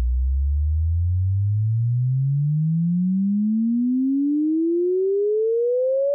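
Sine-wave frequency sweep test tone played through HEDD Audio HEDDphones open-back headphones. A single pure tone at a constant level glides smoothly upward, from a deep low hum to a mid-pitched tone.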